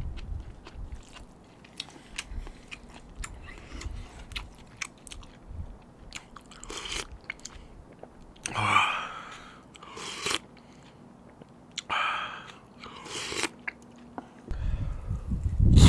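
Close-miked eating of spicy seafood noodles: chewing and biting with many small wet clicks, broken by several louder, longer noisy sounds, and a loud stretch near the end.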